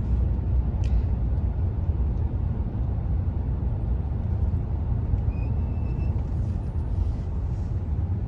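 A car driving along a road: a steady low rumble of engine and tyres, with one short sharp click about a second in.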